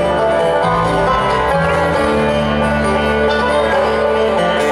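Bluegrass band playing live, led by acoustic guitar over a moving bass line, heard from among the audience.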